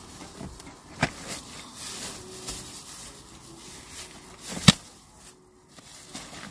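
Objects being handled and rummaged through inside a car: light rustling with a sharp knock about a second in and a louder click or knock about two thirds of the way through.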